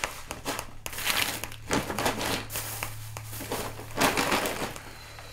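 Brown paper grocery bag rustling and crinkling in repeated bursts as it is handled, over a steady low hum.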